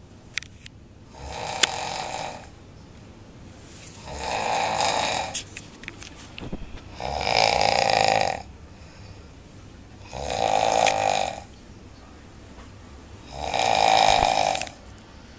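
A person snoring, five long rasping snores about three seconds apart, with quieter breathing between them.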